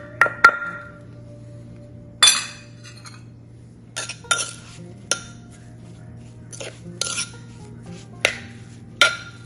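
A pestle strikes pounded dried fish in a clay mortar three times in quick succession. Then a metal spoon scrapes and clinks against the mortar in irregular strokes, each with a short ring.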